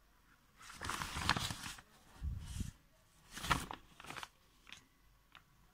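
Brown paper courier bag crinkling and rustling in several bursts as it is handled and moved, with a dull bump about two seconds in.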